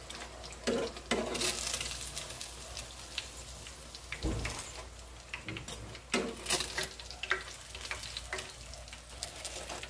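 Breaded chicken fillets frying in hot oil in a pan: a steady sizzle with frequent sharp crackles and clicks as the cooked pieces are lifted out with tongs.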